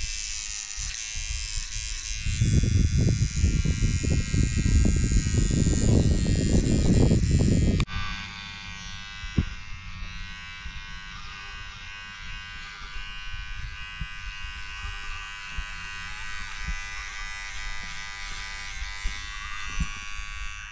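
Electric hair clippers buzzing steadily as they cut short hair. From about two to eight seconds in a loud low rumble lies under the buzz. It stops abruptly, and the buzz carries on quieter, with a few light clicks.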